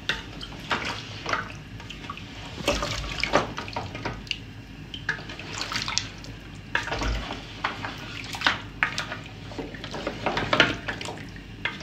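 A wooden spatula stirring thick cow-leg nihari in a large aluminium pot: wet sloshing of the stew, with irregular knocks and scrapes of the spatula against the pot.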